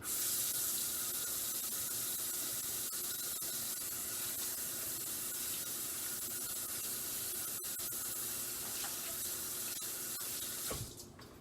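Sink tap running in a steady stream while hands are washed after handling raw meat. The water starts abruptly and is shut off near the end.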